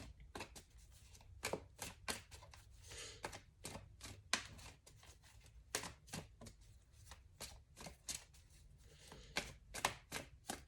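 Tarot cards being handled: faint, irregular light snaps and taps of cards shuffled and set down, about one or two a second.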